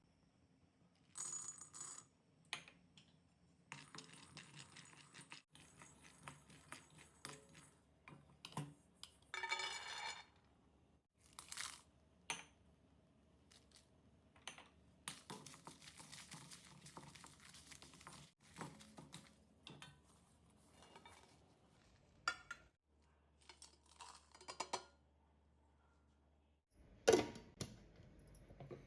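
Kitchen utensils and dishes clinking and scraping in irregular bursts as ingredients are handled, with a brief ringing about ten seconds in and the loudest clatter near the end.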